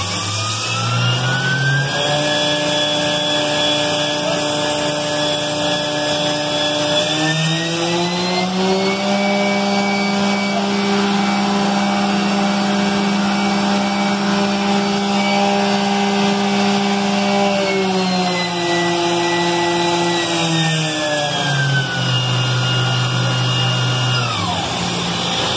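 Spindle of a 2006 Mazak VCN 410A II CNC vertical mill running, its motor whine climbing at first, holding, then stepping up again about a third of the way in. It holds that speed, steps back down twice in the second half and winds down to a stop near the end, over a steady hiss.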